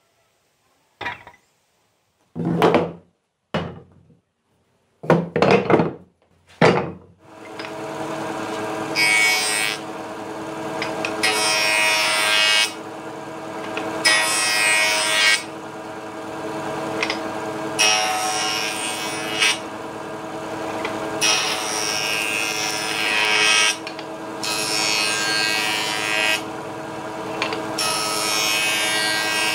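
Wooden boards knocking and clattering together a few times as they are pulled from a stack. Then a homemade bench-mounted power saw runs with a steady motor hum, and about eight times a rasping cutting noise rises over it as strips of wood are fed along its fence.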